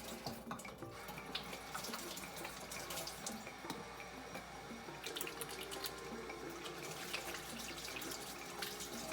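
Kitchen faucet running into a sink, water splashing steadily.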